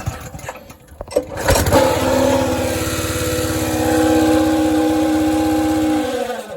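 Honda GX160 single-cylinder engine on a minibike: a few knocks and clicks, then from about a second and a half in it runs loudly at a steady speed with a whine over the engine note. It cuts off suddenly at the end. The whine is the little whining noise whose cause the owner cannot find.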